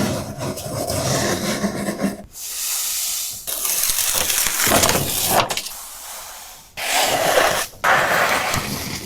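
Gritty hissing and scraping in about five strokes, each a second or two long, with short breaks between them.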